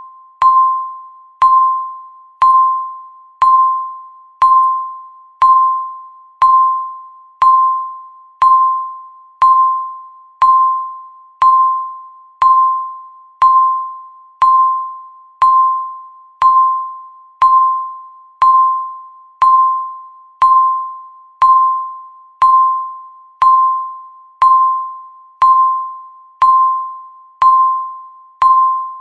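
Countdown timer's tick sound effect: a single bright pitched ping, struck once every second in an even, steady rhythm, each one ringing briefly and fading before the next.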